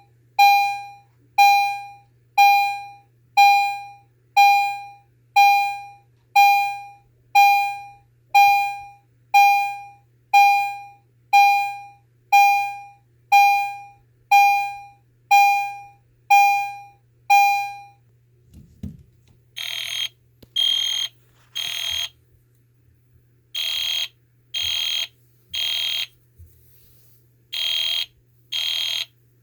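EST Genesis chime striking a single decaying tone about once a second. A thump comes about two-thirds of the way through, then an EST Genesis horn sounds in the temporal-three evacuation pattern: three short blasts, a pause, then three more, repeating.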